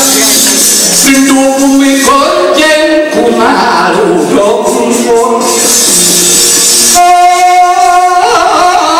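Gamelan music with voices singing, the accompaniment of a Javanese wayang kulit shadow-puppet play, with metallic percussion and a long held sung note near the end.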